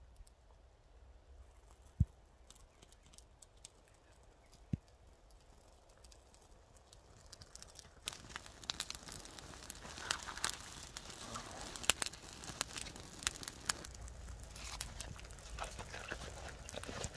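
A twig-and-brush kindling fire catching and burning, crackling and popping irregularly. The fire is quiet at first, with two sharp clicks. About halfway through, the crackling sets in and grows busier as the flames take hold of the dry twigs.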